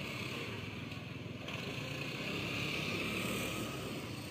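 Steady road and engine noise of a moving vehicle, swelling about two seconds in and easing again near the end.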